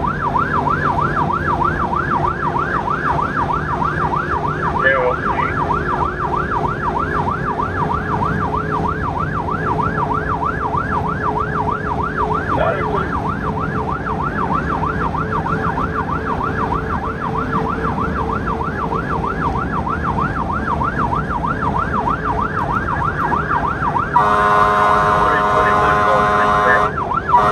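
Fire truck siren in a rapid yelp, its pitch rising and falling about three times a second over a steady engine hum. Near the end a louder steady horn blast takes over, breaking off once for a moment.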